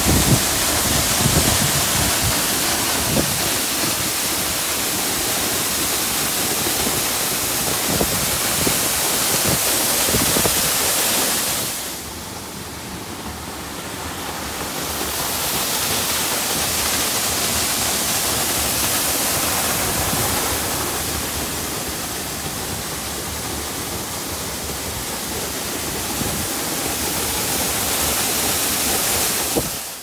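Waterfall pouring down a rock face, a steady rushing hiss that drops back for a few seconds partway through.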